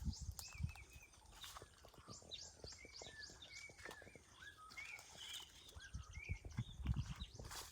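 Birds chirping in many short, quick notes, with scattered low thumps and clicks, the loudest thump near the end.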